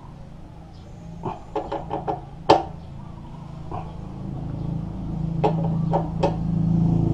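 Metal tool clicks and knocks while a motorcycle fuel tank is being fastened. One sharp knock stands out about two and a half seconds in. A low steady hum grows louder through the second half.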